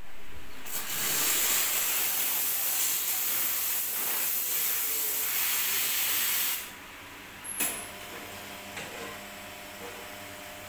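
La Cimbali espresso machine's steam valve opened, giving a loud steady hiss that cuts off about six and a half seconds in when the lever is closed; a sharp click follows, then a much quieter steady sound.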